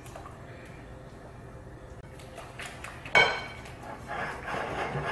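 Wire whisk beating milk into flour for crepe batter in a mixing bowl, starting suddenly about three seconds in with quick, uneven scraping and clinking strokes against the bowl.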